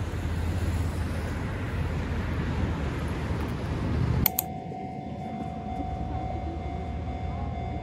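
Steady low rumbling noise of a moving vehicle, cut off abruptly about four seconds in. After the cut comes quieter sound with a faint steady high hum.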